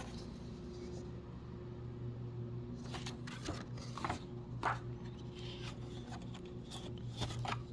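Old paper photographs being handled and leafed through, with about six short rustles and taps in the second half, over a steady low electrical hum.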